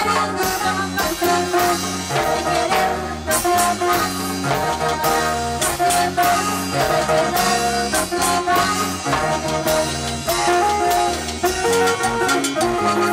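Live band playing an upbeat instrumental passage with a steady dance beat.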